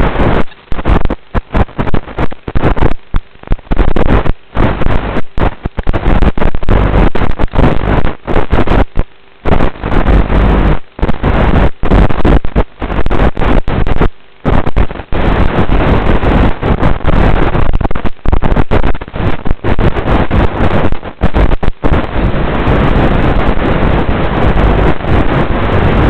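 Loud rushing wind noise on the microphone of a small RC sailboat's onboard FPV camera, with many brief dropouts.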